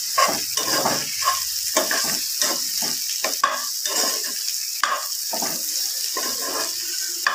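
Diced boiled potatoes, onions and green chillies frying in oil in a non-stick pan: a steady sizzle, with a steel spoon scraping and stirring through them about two to three strokes a second and now and then knocking on the pan.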